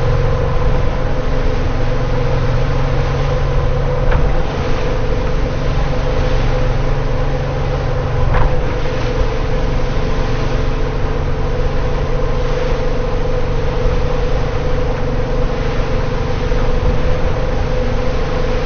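An engine running steadily at constant speed: a steady hum over low rumble and rushing noise.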